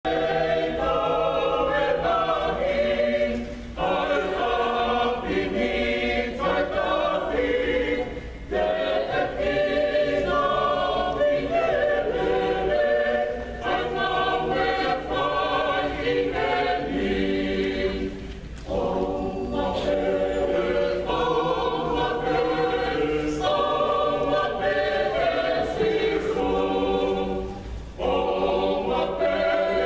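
A choir singing a cappella in several voice parts, in sustained phrases of about four to five seconds with brief breaks between them.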